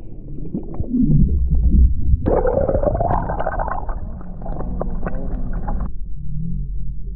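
Muffled underwater rumbling and gurgling of river water, heard with the microphone under the surface as a rainbow trout is held in the current and let go by hand. About two seconds in a brighter rush of water comes in with a rising whine, and a little before the end it drops back to a low rumble.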